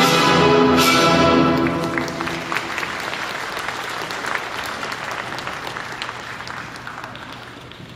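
Figure-skating program music ends on a held final chord about a second and a half in, and the arena audience applauds, the applause slowly dying away.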